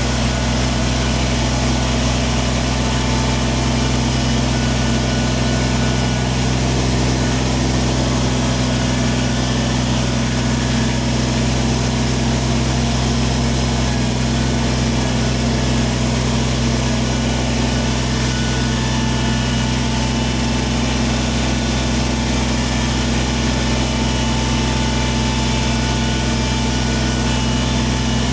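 Kubota tractor's diesel engine running at a steady, unchanging speed.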